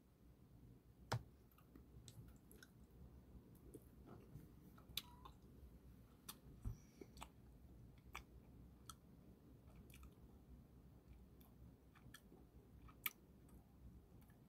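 Near silence: room tone with scattered faint clicks, the most distinct about a second in and again near the end.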